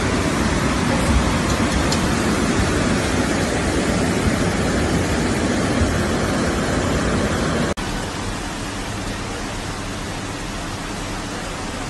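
Muddy flash-flood water rushing in a torrent: a steady, loud rush of water noise. About eight seconds in it cuts to a slightly quieter steady rush.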